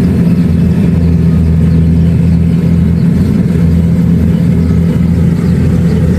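Kubota DC-70 Plus combine harvester running steadily with a loud, even engine drone.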